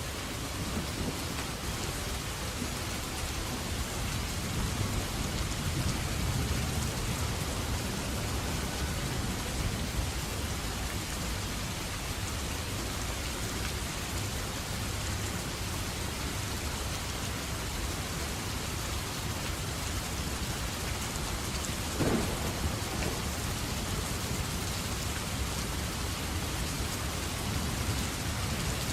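Steady rainfall with low rolling thunder rumbling underneath, and one short sharp crack about three quarters of the way through.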